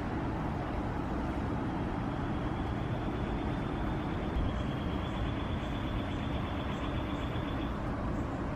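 Steady low background rumble of outdoor ambience, with a faint, thin high tone from about two seconds in until near the end.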